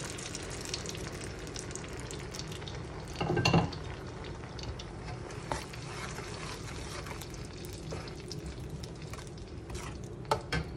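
Blended chili paste of chilies, shallots, garlic and ginger sizzling and crackling in hot oil in a wok while it is stirred with a spoon. A brief louder clatter comes about three seconds in, and two sharp clicks come near the end.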